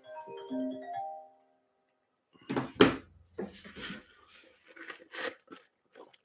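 Phone ringtone playing a marimba-like melody of short mallet notes, which stops about a second in. A few scattered clicks and knocks follow.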